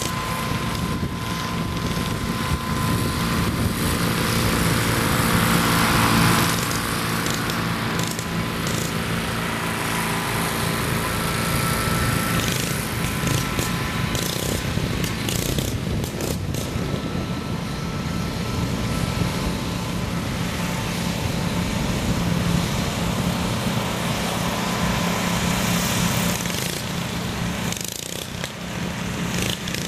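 Riding lawn mower engines running hard in a race, a steady drone that holds throughout and eases slightly near the end.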